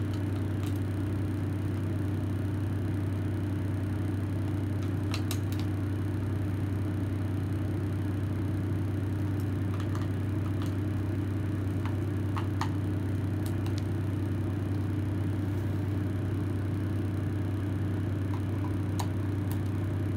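A steady low hum, with a few scattered light clicks and taps from a plastic cordless-tool battery pack being handled as its housing is opened.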